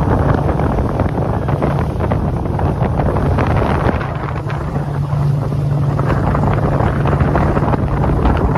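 Ferry engine's steady low drone, with wind buffeting the microphone on the open deck.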